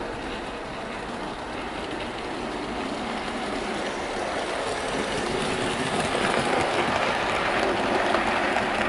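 Bachmann OO gauge Caledonian Railway 812 class model locomotive and its coaches running along model track, a steady mechanical rumble of motor and wheels that grows louder as the train approaches and passes, with faint clicks near the end.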